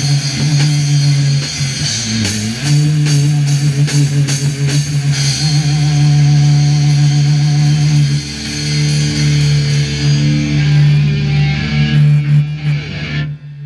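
A heavy rock band playing loud: distorted electric guitars holding low notes over a drum kit with crashing cymbals. The music cuts off abruptly near the end.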